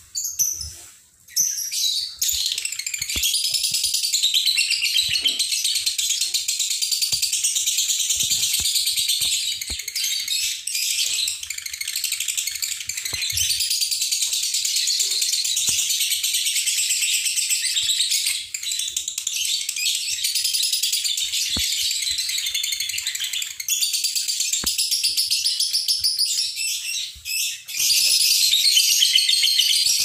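A songbird singing a long, fast, almost unbroken run of high chirping notes, with a few short calls first and brief pauses now and then.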